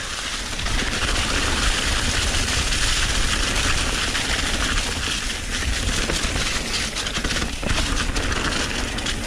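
Mountain-bike ride at speed: wind rushing over an action camera's microphone with a heavy low rumble, and tyres rolling over leaf-covered dirt trail, with occasional small knocks from the bike.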